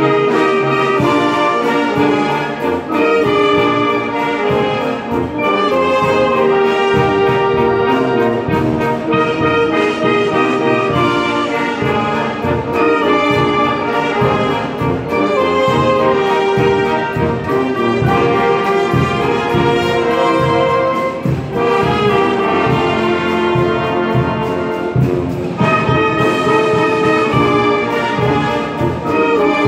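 Mixe village wind band of saxophones, clarinets, trumpets, trombones and sousaphones playing a popurrí medley: full sustained brass-and-reed chords over a steady drum beat.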